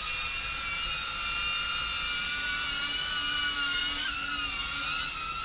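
DJI Avata FPV drone's propellers whining steadily in flight. The pitch jumps briefly about four seconds in, dips, then climbs back as the throttle changes.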